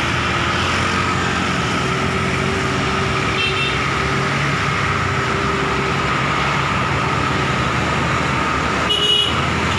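Town street traffic heard from a moving vehicle: a steady engine hum with road and wind noise. Short horn toots sound about three and a half seconds in and again near the end.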